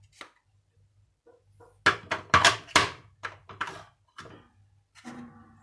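Plastic spice dispensers handled over a small glass bowl: a quick run of sharp plastic knocks and clicks about two seconds in, then a few lighter clicks.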